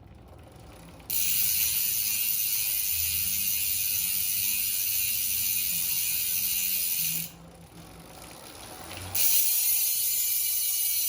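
Speedone Torpedo 8-pawl bicycle rear hub's freehub ratchet buzzing as the wheel freewheels. It starts about a second in, stops about seven seconds in, and starts again about two seconds later.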